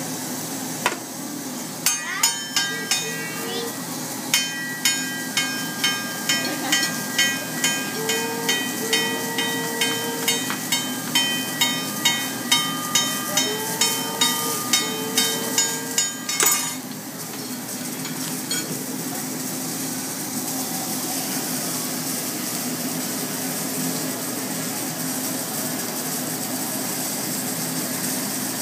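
Metal spatulas clacking rhythmically on a hibachi griddle, about two ringing strikes a second, stopping abruptly about halfway through; the hot griddle then sizzles steadily.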